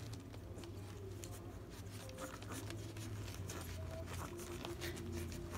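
Twelve-day-old Rottweiler puppies suckling at their mother: a run of faint wet clicks and smacks over a low steady hum, with two brief squeaks about two and four seconds in.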